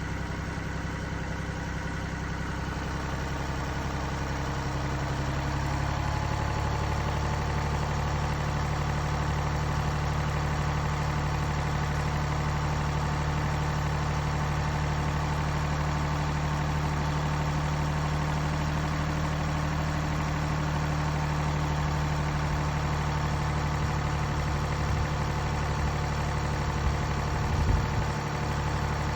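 Mini Cooper D three-cylinder diesel engine running steadily, getting louder about five seconds in, with a couple of short knocks near the end. The noise is put down to a broken dual mass flywheel.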